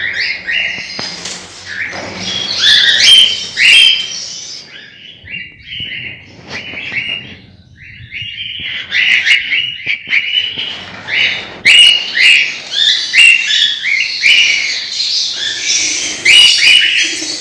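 Pet parrots chirping in quick, repeated short calls. The calls are thinner and quieter for a few seconds about a third of the way in, then pick up again.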